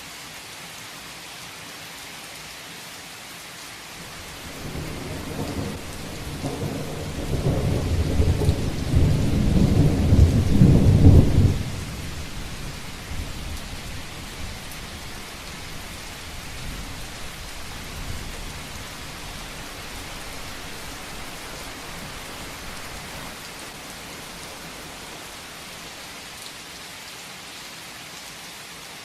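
Steady heavy rain, with a rolling thunder rumble that builds over several seconds, peaks, then drops off sharply, leaving the rain and a faint lingering rumble.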